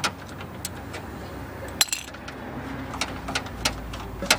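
Scattered small metallic clicks and clinks of a wrench and latch parts being handled, with a sharper click a little under two seconds in and another near the end.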